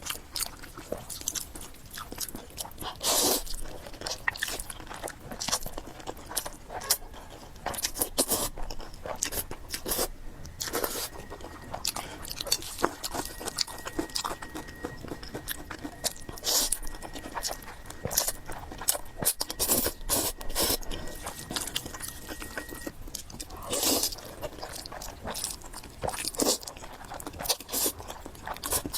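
Close-up eating sounds: irregular crunching and chewing, with wet mouth clicks, as fried noodles with pork are eaten.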